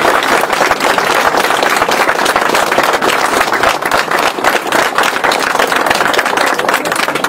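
Audience applause: many people clapping at once in a dense, steady patter.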